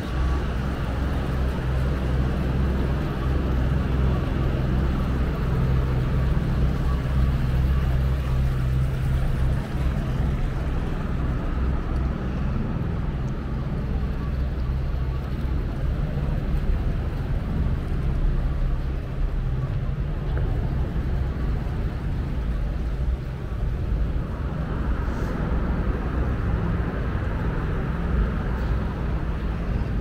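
Steady low rumble of city background noise, with no single event standing out.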